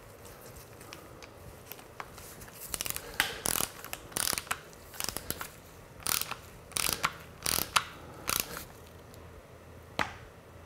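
Torque wrench with a 5 mm Allen bit ratcheting a fork's foot bolt tight: about nine short bursts of ratchet clicks, one per stroke, starting about two and a half seconds in, then a single click near the end.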